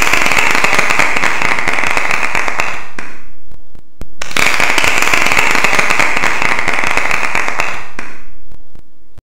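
A loud, dense crackling sound effect, like crackling fireworks, played twice in a row. The first run fades out about three and a half seconds in, and the same effect starts again about four seconds in and fades out near the end.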